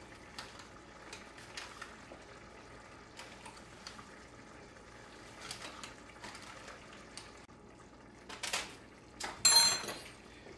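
Stew boiling in a stainless steel pot, with faint bubbling and small pops. Near the end come a few louder knocks and then one ringing metal clink against the pot.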